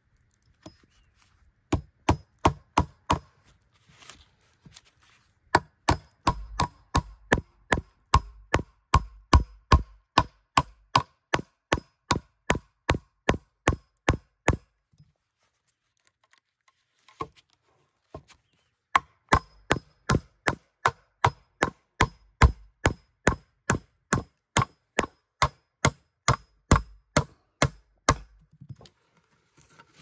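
A hammer driving a nail into wood, with steady strikes about three a second and a slight metallic ring on each. The strikes come in two long runs with a short pause halfway through.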